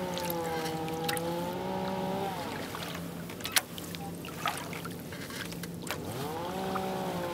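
Kayak paddling: the double-bladed paddle dipping and pulling through calm water, with a few sharp knocks in the middle. A steady hum with wavering, gliding tones runs through the opening seconds, fades out, and returns near the end.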